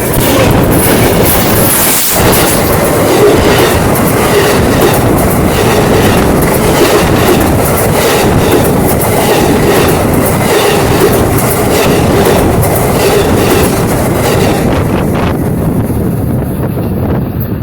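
A train passing close by at track level: loud rolling rumble of the cars with wheels clicking in a steady rhythm over the rail joints, easing off near the end as the last cars go by.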